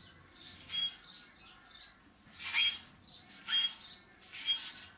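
Green Scotch-Brite abrasive pad scrubbed along a dirt bike's metal steering stem, scouring off rust: four separate rasping strokes, about one a second, each with a short high squeak.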